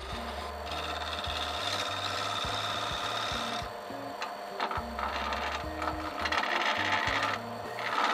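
A wood lathe spinning a teak blank while a roughing gouge cuts into it: a continuous scraping, rasping cut of the tool on the wood over the running lathe. The cutting eases off about halfway through, then comes back stronger near the end.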